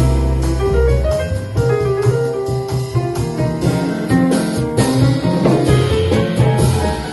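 Live jazz combo playing: piano over double bass, with light percussion.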